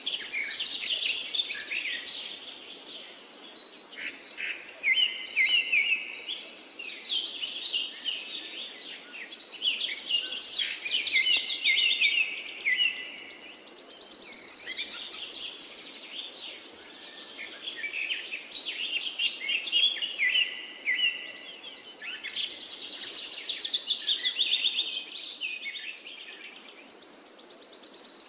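Birds singing: bursts of high chirps and quick trills, with the same stretch of song coming round about every fourteen seconds.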